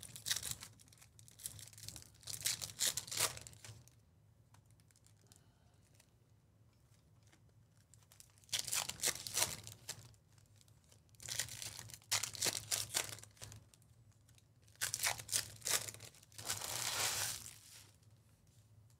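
Foil wrappers of Topps Chrome baseball card packs being torn open and crinkled by hand, in several separate bursts of a second or two with pauses between.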